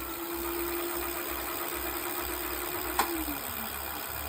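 Tesway X7 electric bike motor spinning the lifted wheel under throttle with a steady whine, then a click about three seconds in and the whine falls away as the motor winds down. With no load it runs clean, without the abnormal noise it makes when ridden.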